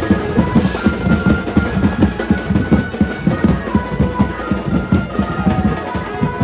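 A Mumbai banjo party band playing in procession: fast, dense drumming under a held melody line.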